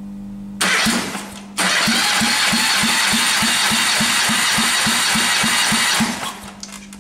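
Mitsubishi 4A91 1.5-litre four-cylinder engine turned over by its starter without firing: a short crank, then a second crank of about four seconds with a steady beat of about four pulses a second, cutting off near the end. This is the cranking for a compression test of the first cylinder, which reads 14 kg/cm².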